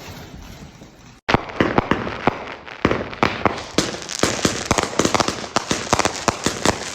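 Fireworks going off: a rapid, continuous run of sharp bangs and crackles, starting about a second in.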